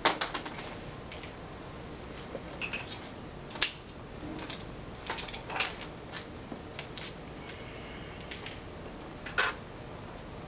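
Metal clicks and clinks of a long-handled socket wrench working in short runs as the clutch cover bolts are tightened down onto the flywheel.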